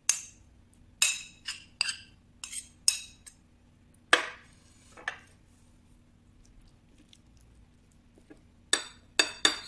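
Metal spoon clinking against ceramic plates as rice is tipped out and food is spooned up: about a dozen sharp, ringing clinks, a quick run at the start, two more in the middle and another quick run near the end.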